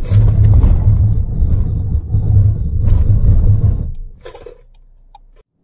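Loud low road and tyre rumble inside the Geely Monjaro SUV's cabin as it brakes hard from about 117 km/h, dying away about four seconds in as the car slows almost to a stop.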